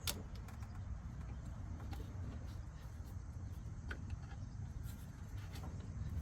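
A few light clicks from spark plug wires being handled and pushed onto their terminals in a V8 engine bay, with the sharpest right at the start and others about four and five and a half seconds in. A low steady rumble runs underneath.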